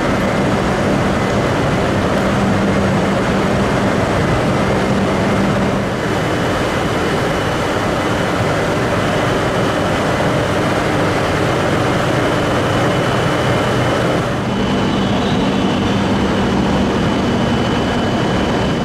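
E956 ALFA-X shinkansen test train moving slowly alongside a station platform: a steady rushing hum with a few steady whining tones over it.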